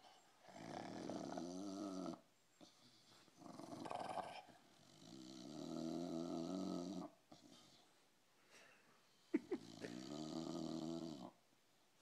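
English bulldog snoring as it breathes, awake with a ball in its mouth: four drawn-out snores, three of them about two seconds long, with a sharp click just before the last.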